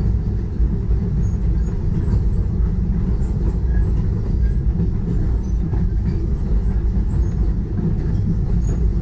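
Steam train running steadily along the track: a continuous low rumble.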